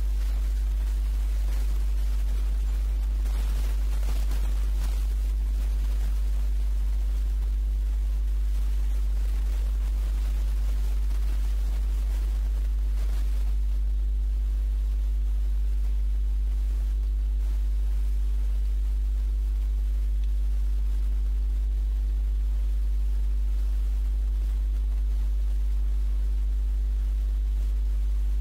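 Steady low electrical hum with a faint hiss, unchanging throughout: mains hum picked up by the recording setup.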